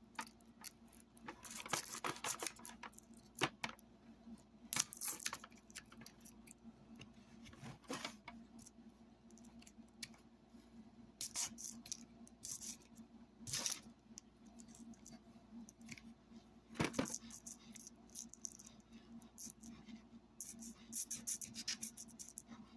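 Intermittent short scrapes and clicks of a hand file and other hand tools working on metal speaker parts, over a faint steady hum.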